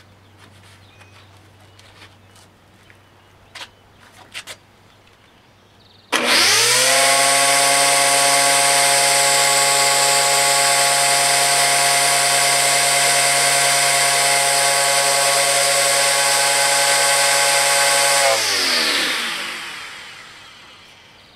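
Corded electric string trimmer with a 3D-printed blade attachment, spinning freely in the air: the motor starts about six seconds in with a quick rising whine, runs at full speed for about twelve seconds, then is switched off and winds down over a couple of seconds.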